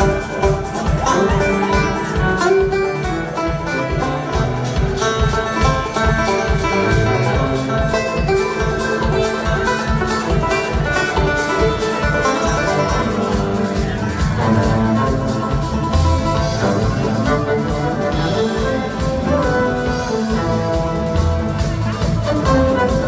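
A bluegrass-style rock band playing live, with banjo and guitar over a steady drum beat, recorded from the audience.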